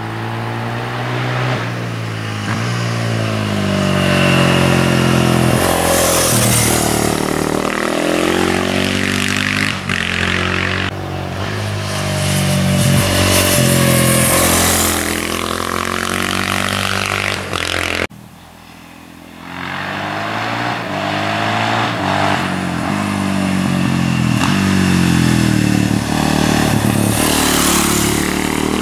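Honda XR650R's big single-cylinder four-stroke engine, the supermoto ridden hard through bends, its revs rising and falling over and over. The sound drops off suddenly about eighteen seconds in, then builds again.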